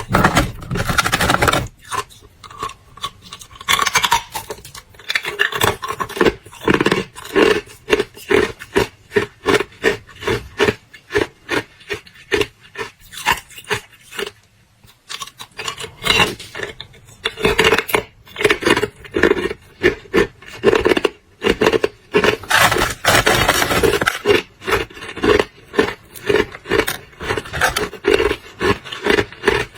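Hard clear ice being bitten and chewed close to the microphone: a rapid run of crunches, with a short pause about halfway through.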